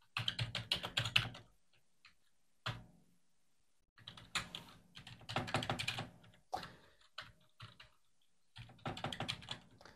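Typing on a computer keyboard: quick runs of keystrokes in several bursts with short pauses between them, and a single stray keystroke between the first two bursts.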